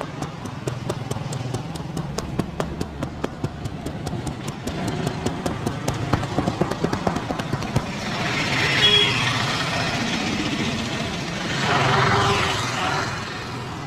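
Quick rhythmic tapping of a barber's hands in a massage, about four taps a second, over steady street traffic. The tapping stops about halfway, and vehicles pass loudly, the nearest about nine and twelve seconds in.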